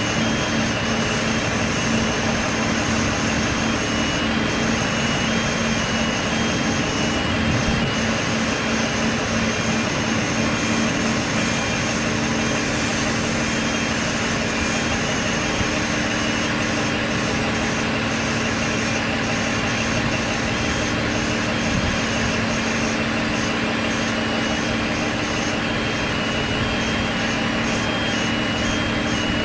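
Diesel multiple-unit passenger train standing with its underfloor diesel engines idling, a steady hum with no change in speed.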